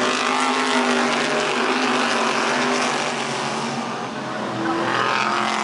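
Race car engines running at speed on an oval track, with a modified-style car passing close by at the start. The sound eases a little about four seconds in and swells again near the end.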